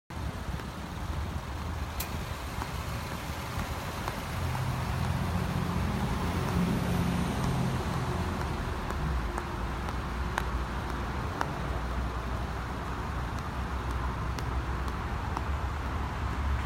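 Steady low rumble of motor vehicle engines and traffic, swelling for a few seconds from about four seconds in, with a few faint clicks.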